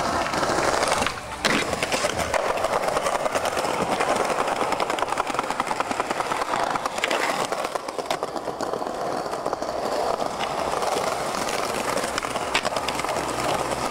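Skateboard wheels rolling over rough paving, a continuous gritty roll with fast clicking over the joints and a sharp knock of the board about a second and a half in.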